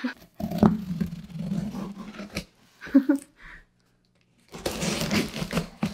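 A cardboard shipping box being handled and cut open, rasping and scraping in two stretches of a second or two each.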